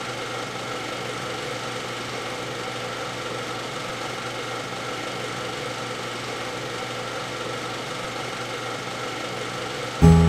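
Super 8 film projector running: a steady mechanical whir with a constant hum. Music comes in suddenly right at the end.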